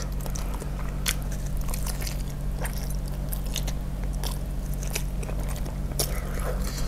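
Chewing and biting into a large beef-tendon meatball (bakso urat) coated in spicy sambal, picked up close by a chest clip mic: irregular wet mouth clicks and smacks, roughly one a second, over a low steady hum.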